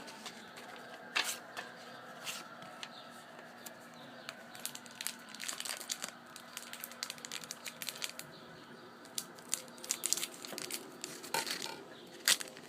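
Trading card pack wrappers being torn open and crinkled by hand, a run of irregular crackles and rustles, with a louder snap near the end.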